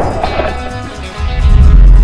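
Background music with sustained tones, and a deep low rumble swelling through the second half.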